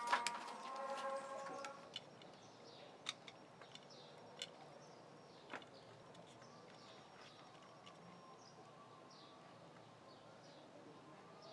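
Sharp clicks and a brief steady tone in the first two seconds, then a few more scattered clicks. Faint short high chirps, like small birds, recur every second or so over low background noise.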